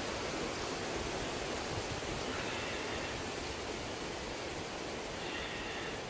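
Steady, even rushing of wind outdoors, unbroken throughout.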